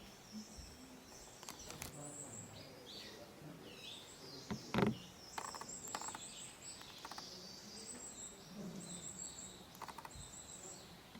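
Small wild birds chirping and calling, many short high notes and trills, with a few soft knocks; the loudest is a knock about five seconds in.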